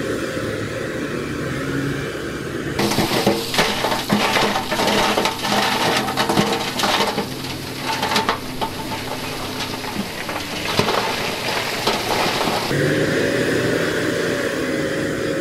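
Dump truck's diesel engine running steadily as its bed tips. About three seconds in, a load of rock starts sliding out and tumbling down the embankment into the water, a dense, irregular clatter and crashing of stones that lasts about ten seconds and then stops, leaving the engine alone.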